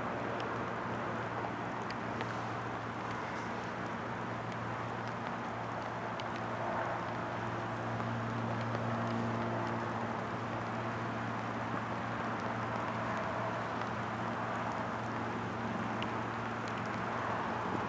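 Double-stack intermodal freight train rolling slowly along the track: a steady rumble with a low hum, swelling a little about midway and again near the end.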